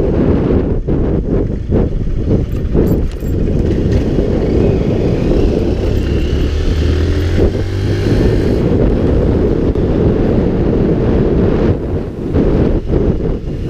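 Wind buffeting a moving vehicle-mounted camera's microphone over steady road and engine noise. Around six to eight seconds in, a low engine hum swells briefly.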